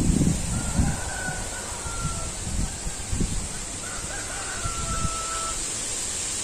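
A faint rooster crowing twice, each crow a long held call that dips slightly at its end. Low rustling and knocks are heard during the first second.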